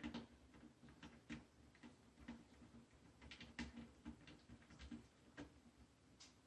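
Faint, scattered small clicks of a small screwdriver turning a tiny screw out of an internal panel of a radio controller.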